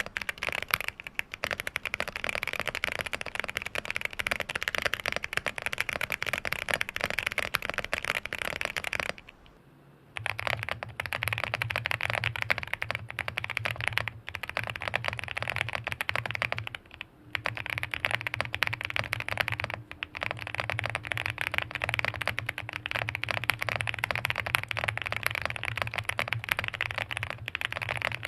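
Continuous typing on a QK65 mechanical keyboard with Boba U4T tactile switches and a POM plate, on a bare desk: a dense, even clatter of keystrokes. It pauses briefly about nine seconds in and resumes with the switches lubed with Krytox 205g0, now over a steady low hum.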